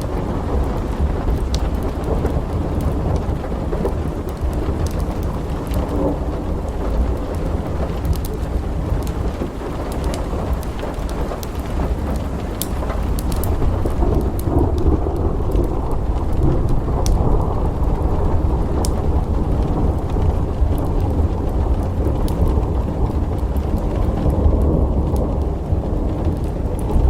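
Thunderstorm with steady rain and a continuous low rolling rumble of thunder, growing slightly louder about halfway through. Scattered sharp ticks sound over it.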